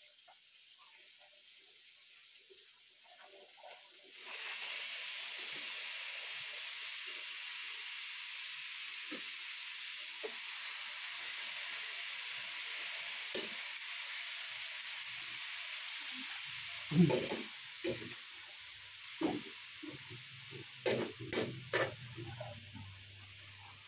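Marinated beef sizzling in a hot wok. The sizzle starts suddenly about four seconds in as the meat goes in, holds steady, and eases near the end. From about two-thirds of the way through, a metal spatula clanks and scrapes against the wok several times as the meat is stirred.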